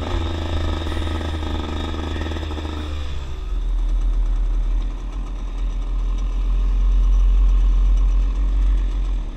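Dirt bike engine running on the throttle, its pitch dropping about three seconds in as the rider rolls off and slows, then a steady low rumble.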